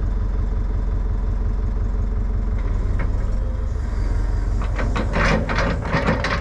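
Excavator diesel engine running steadily at low revs, with a short cluster of clattering, scraping noises near the end as the machine pushes the track idler back in.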